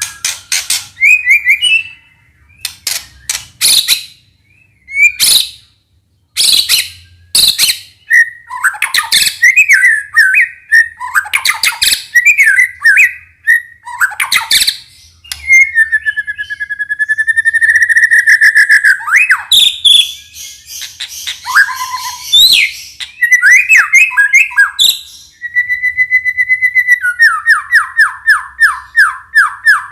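White-rumped shama (murai batu) singing: loud, varied whistled phrases broken by sharp clicking notes, with a fast rattling trill near the end.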